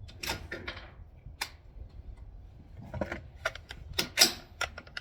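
Sharp metallic clicks and clacks of a PTR .308 rifle's action being worked by hand, the loudest a hard clack about four seconds in. This is a rifle being cleared after it failed to cycle.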